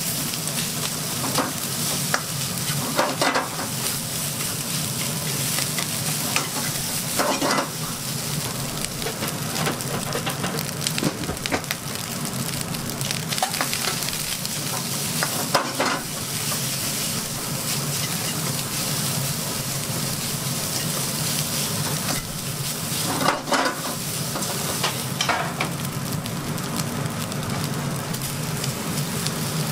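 Fried rice sizzling steadily in a wok over a gas flame while it is stirred and pressed with a spatula, with a few louder scrapes of the spatula against the pan now and then.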